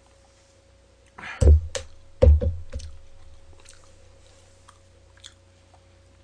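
Two heavy thumps about a second and a half in, under a second apart, as a beer glass is set down on the table. Then a few light clicks and faint chewing of fried chicken.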